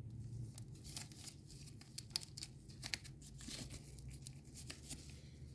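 Faint rustling and scattered light clicks of trading cards being handled and slid against one another, over a low steady hum.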